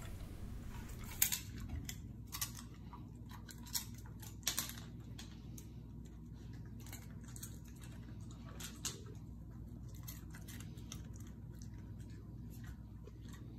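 A German Shepherd nosing and licking at treat crumbs on a tile floor: scattered small clicks and taps over a low steady hum.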